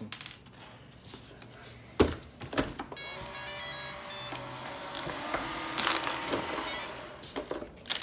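Shark ION RV700 robot vacuum set down with a knock, then playing its short start-up beep tune while its suction motor and brushes spin up and run steadily. The unit, reported broken and clogged with hair, is powering up and working.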